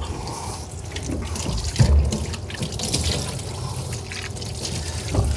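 Kitchen sink tap running while freshly scaled and gutted sand dabs are rinsed under the water, with a knock about two seconds in.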